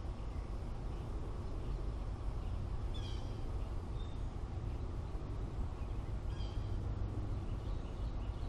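A bird gives a short, harsh call twice, about three seconds in and again about three seconds later, over a steady low rumble.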